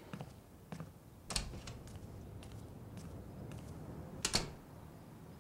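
Scattered small clicks and knocks in a quiet room, the loudest a little over a second in and a quick double knock near the end.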